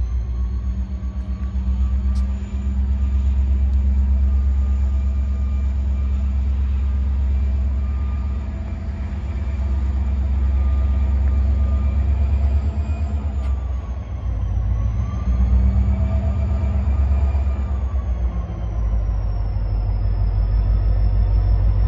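Train running, a steady low rumble with a motor tone above it whose pitch sags and comes back up a couple of times in the second half.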